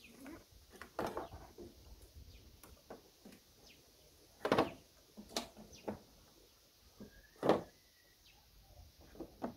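Scattered clicks and knocks of hand tools and plastic parts being worked on a car headlight as it is unbolted and loosened, with two louder knocks about four and a half and seven and a half seconds in, the second with a brief squeak.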